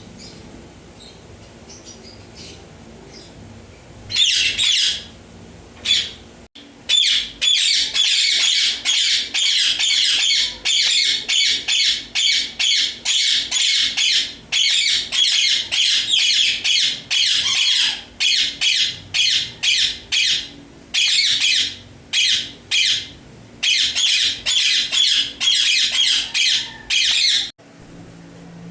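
Indian ringneck parakeet screeching: after a brief squawk about four seconds in, a long run of loud, harsh squawks follows in quick succession, several a second with short pauses, and stops shortly before the end.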